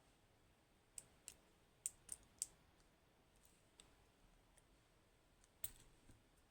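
A few small, sharp clicks of metal lock parts being handled while the lock is taken apart, scattered irregularly with three close together around two seconds in.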